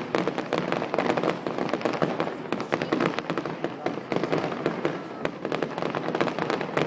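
Fireworks display: a dense, unbroken run of rapid bangs and crackling bursts.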